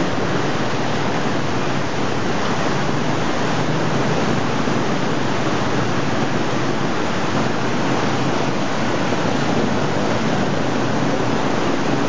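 Muddy, fast-flowing river water rushing steadily, an even unbroken rush with no breaks.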